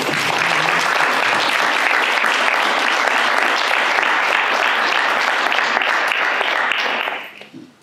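A roomful of people applauding steadily, dying away about seven seconds in.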